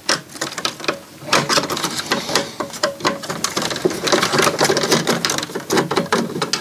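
Irregular clicks, taps and small rattles of a screwdriver and fingers working at a CD player's open metal chassis and plastic disc drive while a flat ribbon cable is unplugged and pulled free.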